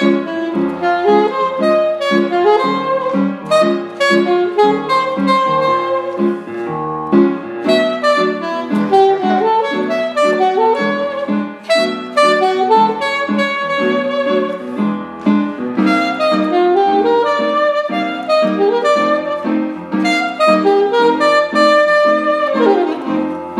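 Jazz practice music: a ii–V–I lick played in one key after another, a fast melody line over chords beneath, with a note sliding down near the end.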